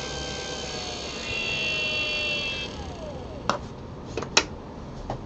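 Dayton 12-volt DC worm-drive gear motor running unloaded with a high whine. About two to three seconds in, the pitch falls as it is switched off and winds down. A few sharp clicks follow.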